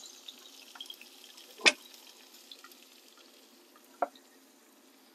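Faint sizzling and crackling of the hot lamb on the rotisserie spit, fading away, with two sharp metal knocks, about a second and a half in and again about four seconds in, as the spit is lifted out of the grill and set down on a wooden cutting board.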